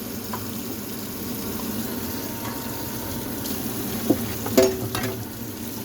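Food cooking on the stove, a steady hiss, with two short knocks about four and four and a half seconds in.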